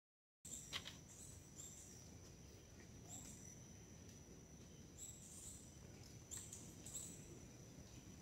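Forest ambience that starts about half a second in: a steady high-pitched insect drone, with short high chirps repeating about every second and a half over a low rumble.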